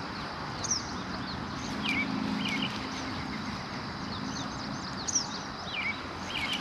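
Birds chirping: short high calls every second or so, over a steady outdoor hiss, with a faint low hum for a couple of seconds near the start.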